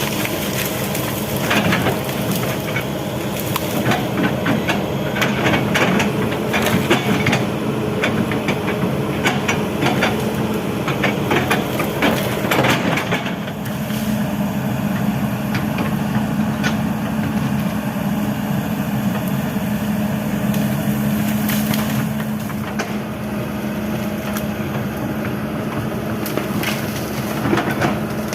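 Kobelco SK200 excavator's diesel engine running steadily under load, with many sharp cracks and snaps through roughly the first half as branches and brush are broken during forest clearing; later the engine runs on with only occasional knocks.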